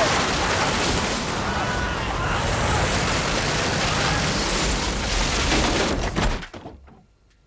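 Loud, rushing wind noise of a tornado, with faint voices mixed into it. It cuts off suddenly about six and a half seconds in.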